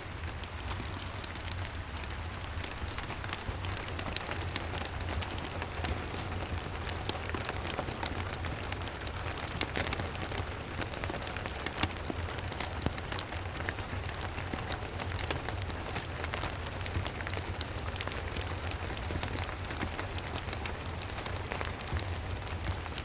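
Steady rain pattering, mixed with the small crackles of a wood fire, over a steady low rumble.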